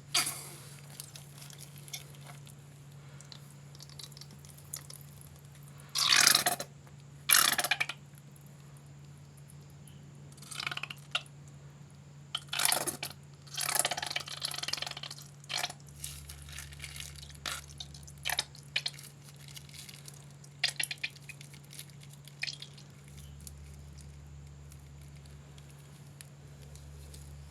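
Slime being squished and pulled by hand, giving irregular wet, sticky crackles and pops. The two loudest bursts come about six and seven and a half seconds in, then smaller scattered ones, and it goes quiet near the end.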